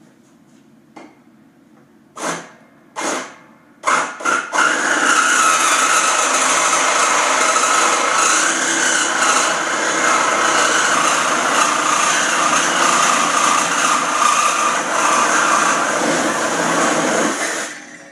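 Reciprocating saw cutting through a steel square-tube plow frame: a few short bursts, then steady cutting for about thirteen seconds that stops shortly before the end.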